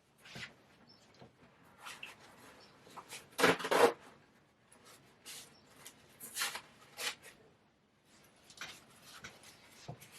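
Irregular handling noises: light rubs, scrapes and clicks of small objects being moved and set down, with a louder cluster about three and a half seconds in.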